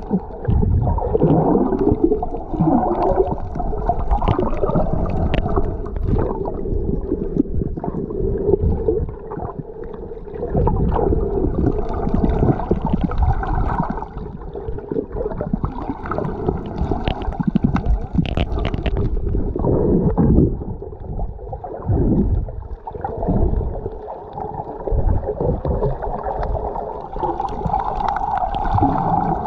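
Muffled underwater noise picked up by a submerged camera: water gurgling and bubbling over a low rumble, swelling and easing irregularly.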